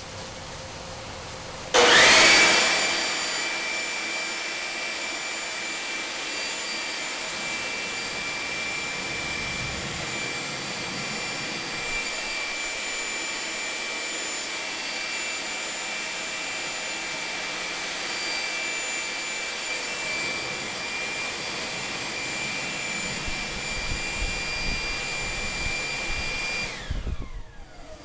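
Homemade gas turbine burner can on a test run, blown with forced air. It comes on suddenly and loudly about two seconds in, then settles into a steady rushing roar with a high whine. Near the end it cuts off and the whine falls in pitch as the air supply spins down.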